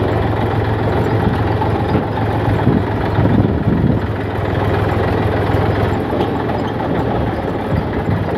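Massey Ferguson tractor's diesel engine running steadily as the tractor drives along, heard from the driver's seat.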